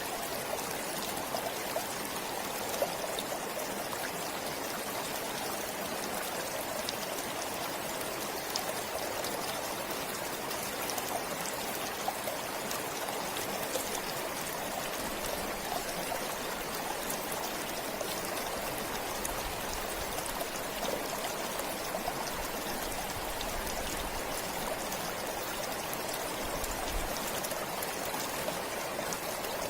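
Forest stream flowing steadily, an even rushing and trickling of water.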